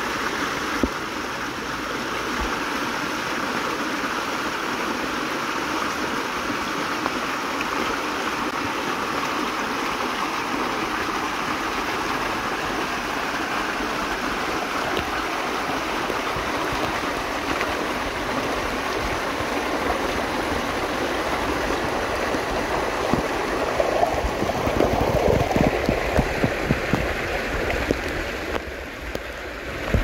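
Shallow river stream flowing, picked up by an underwater camera: a steady rushing of water. About three-quarters of the way through it grows a little louder, with irregular knocks and crackles, then briefly dips near the end.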